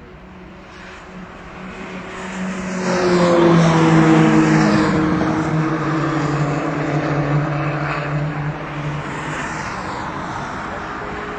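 Track-day car at full throttle on the straight, its engine note building over a few seconds, dropping slightly in pitch as it goes past, then slowly fading.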